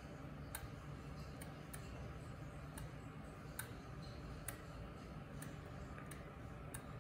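Faint, irregular clicks from a Seikomatic 8305B automatic watch movement as its crown is turned by hand to advance the date ring, about one or two a second, over a low steady hum.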